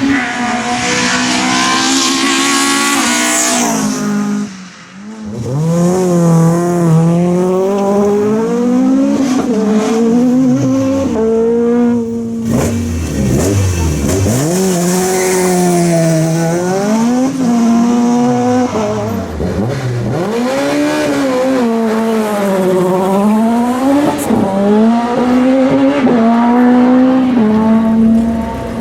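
Rally car engine revving hard, its pitch climbing and falling again and again through gear changes and throttle lifts. It breaks off briefly about four and a half seconds in.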